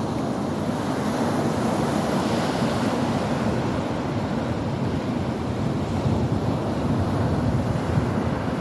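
Ocean waves washing in a steady rush of surf, swelling a little now and then.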